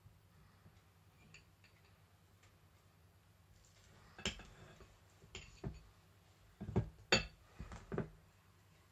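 Metal cutlery clinking and scraping against a ceramic bowl and plate while scooping and spreading potato salad. The first half is almost quiet; then come about seven sharp clinks over four seconds.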